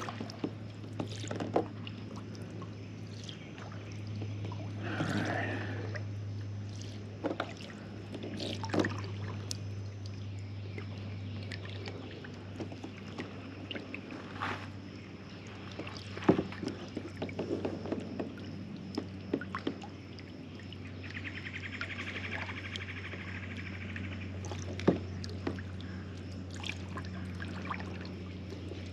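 Kayak paddle strokes: the blades of a double-bladed paddle dipping and pulling through calm water, with water dripping and trickling off the blades between strokes, over a steady low hum.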